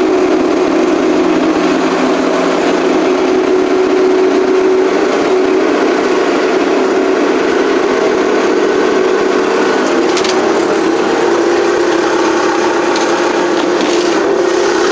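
1980 Case 480D backhoe's 3.1-litre three-cylinder diesel running steadily, warming up just after a 0°F cold start with the block heater plugged in.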